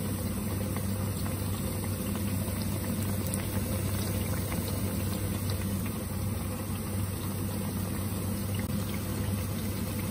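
Battered tempeh slices frying in hot oil in a pan: a steady sizzle dotted with tiny crackling pops, over a steady low hum.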